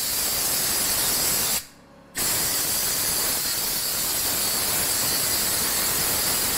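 Compressed-air blow gun on an air hose hissing steadily as it blows dust out of a cabinet box. The air cuts off for about half a second, a little before two seconds in, then starts again.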